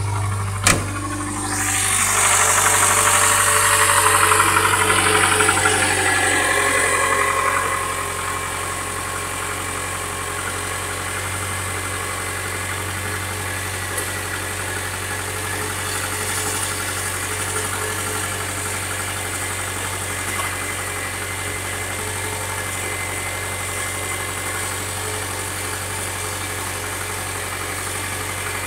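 Subaru EJ251 2.5-litre flat-four running cold with a knock, settling to a steady idle. A sharp click comes about a second in, and the sound is louder and noisier for the first several seconds.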